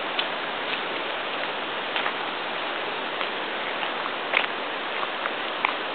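Steady outdoor rushing noise on a windy day, with a few faint ticks scattered through it.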